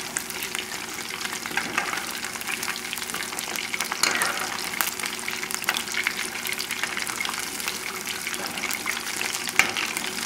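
Battered chicken pieces deep-frying in hot oil in a metal pot: a steady, dense crackling sizzle of vigorous bubbling, as a slotted spoon stirs them through the oil, with a few sharper clicks.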